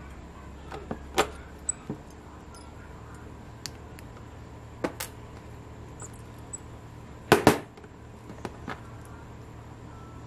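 Small side cutters snipping and clicking as they work a small 3D-printed plastic part with a thin metal pin, over a faint steady hum. The sharp clicks come at irregular intervals, and the loudest is a quick double click about seven seconds in.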